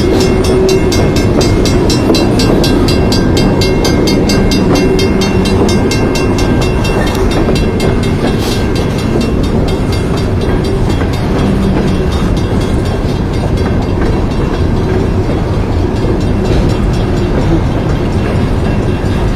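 Long coal train of hopper cars rolling past: a steady rumble and clatter of wheels on the rails, with a fast, regular ticking in the first half that fades away.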